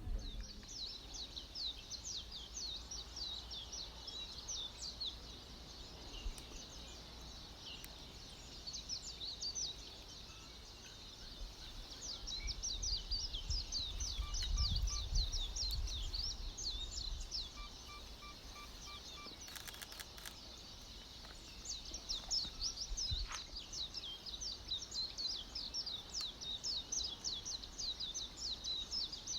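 A chorus of small birds chirping steadily: many quick, high, falling chirps overlapping each other. A low rumble swells underneath partway through.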